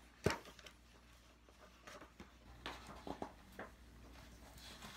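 Hardcover picture book's cover and pages being turned by hand: one sharp tap just after the start, then a few soft paper rustles and small clicks.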